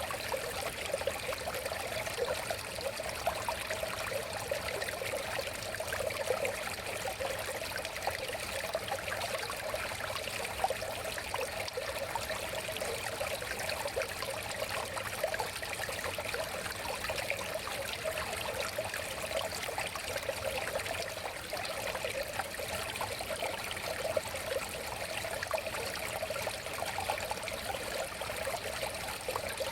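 River water flowing and babbling steadily, an even rush with many small splashes and gurgles.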